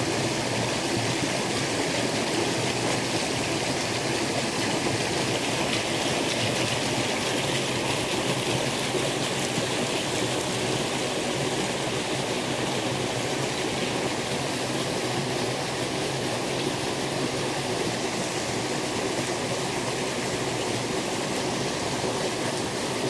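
Shallow stream running over a rocky bed, a steady rushing of water with no breaks.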